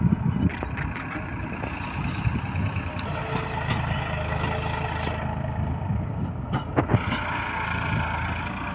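Farmtrac 60 tractor's diesel engine running steadily as it pulls a land leveler through the soil, with a few sharp knocks just after the start and again about seven seconds in.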